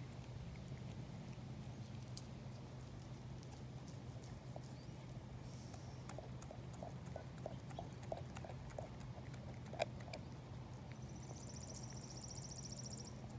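Dog gnawing on a raw marrow bone: a run of quick knocks of teeth on bone about halfway through and one sharper crack a few seconds later, over a steady low hum. A brief high trill sounds near the end.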